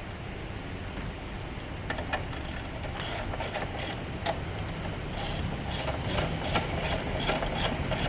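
Socket ratchet wrench clicking, about three clicks a second, starting about two seconds in, while the front wheel axle is tightened.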